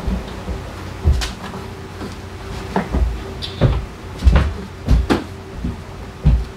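Irregular knocks and clunks of parts and tools being handled during work on a scooter's drivetrain, about ten in a few seconds, over a faint steady hum.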